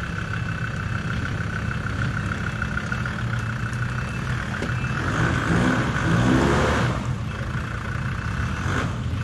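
Land Rover Discovery TD5's five-cylinder turbodiesel running at low revs as the truck crawls over rocks, revving up with a rising note and a rush of noise about five to seven seconds in, then dropping back.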